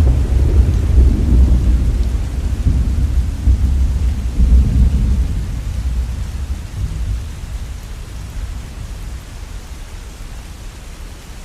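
Thunder rumbling and rolling, with a second swell about four and a half seconds in, then dying away by about eight seconds, over steady rain.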